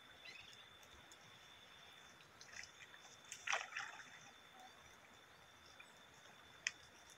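Faint water sloshing and splashing as a seine net is hauled through a shallow muddy creek by men wading, with the loudest splash about three and a half seconds in and a brief sharp click near the end.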